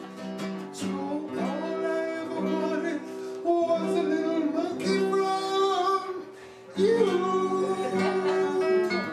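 A song: acoustic guitar playing with a voice singing over it.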